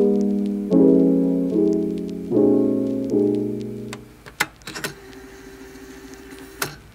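Background piano music: soft chords struck one after another, dying away about four seconds in, followed by a quieter stretch with a few light clicks.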